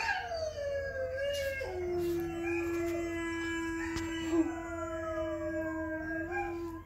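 Recorded canine howling played back from a device: several long overlapping howls, some sliding down in pitch, one held steady for about five seconds.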